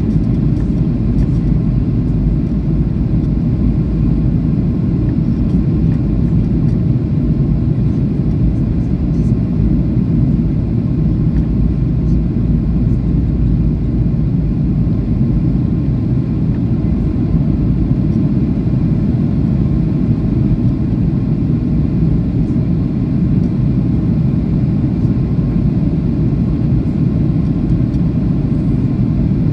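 Steady low cabin rumble of a Boeing 737-800 in flight, the CFM56-7B engines and the airflow over the fuselage blending into one even drone heard from a window seat over the wing.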